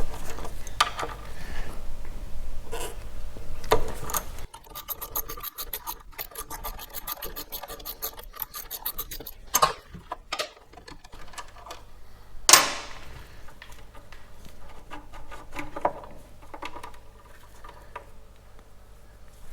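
Hand-tool work on a motorcycle brake caliper: a spanner and metal parts clicking, scraping and knocking. A few seconds in there is a run of rapid, evenly spaced ticking, and a little past halfway comes one sharp metal clank with a ringing tail.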